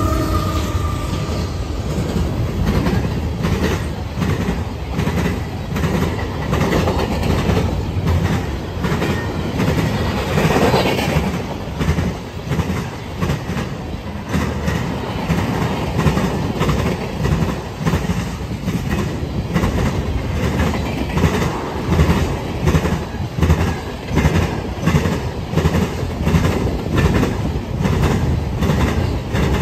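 A freight train rolling past, its wheels clacking over rail joints in a steady repeating rhythm over a low rumble. The locomotive's horn drops in pitch and fades out about a second in.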